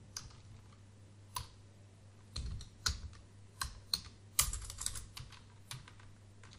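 Keystrokes on a computer keyboard: single taps at irregular spacing, then a quick run of presses about two thirds through, as lines are navigated and new blank lines opened in a text editor.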